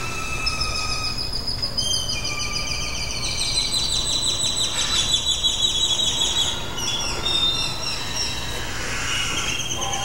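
Many birds calling at once: overlapping high trills and rapidly repeated chirps that layer over one another, with a low steady hum beneath.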